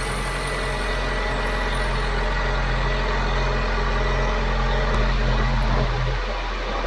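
2006 Honda Civic Si's four-cylinder engine idling steadily, running just after the power steering system was refilled.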